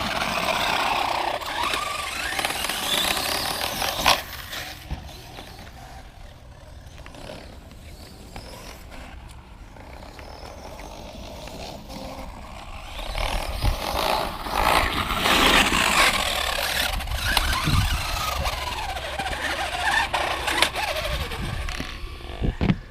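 Electric brushless motor and drivetrain of a Traxxas X-Maxx RC monster truck whining up and down in pitch as it is driven hard, loud for the first few seconds, quieter in the middle, then loud again for several seconds. The drivetrain is failing: the driver suspects a stripping pinion gear or rear differential gear.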